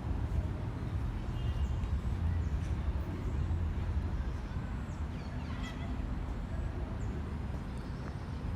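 City-park ambience: a steady low rumble of distant traffic, with a few faint bird chirps about a second in and again around five to six seconds in.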